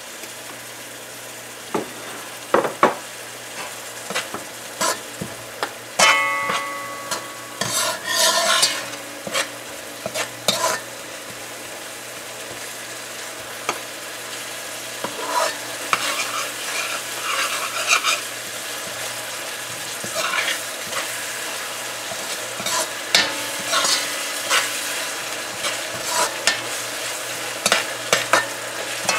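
Curry paste of ground spices and garlic sizzling steadily in hot oil in a metal pot, frying to release the spices' aromas. A slotted metal spoon stirs it, scraping and clinking against the pot at irregular intervals.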